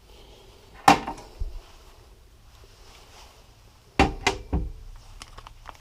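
Metal hand tools and small engine parts clanking against a workbench: one sharp clank about a second in, then three more in quick succession around four seconds in, each ringing briefly, with a few light clicks near the end.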